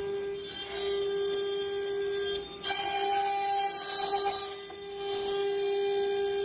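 CNC router spindle running with a steady whine while the bit carves lettering into the wooden sign board. The cutting grows louder and harsher from about three seconds in for a second or two, then eases off.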